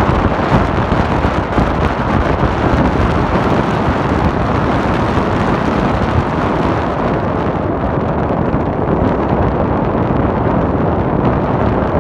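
Loud, steady rush of wind buffeting the microphone of a phone held out of a moving car.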